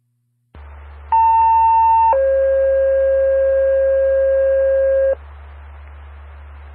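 Two-tone sequential paging tones on a fire dispatch radio channel: a higher steady tone for about a second, then a lower steady tone held for about three seconds. Radio hiss and hum come in when the channel opens about half a second in and carry on after the tones stop.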